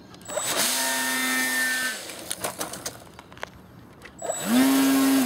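Electric motor and propeller of a ParkZone F4U Corsair RC plane run up twice on the ground, each time a steady high whine with rushing prop wash for one to two seconds, spinning up quickly and winding down. The second run is the louder one. It is a throttle test after the propeller was found to have been mounted backwards.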